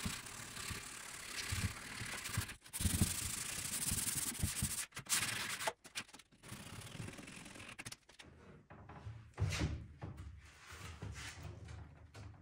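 Hand sanding the worn wooden edge of an old dresser top with folded sandpaper: a rasping rub of repeated strokes that stops and starts several times, quieter in the second half.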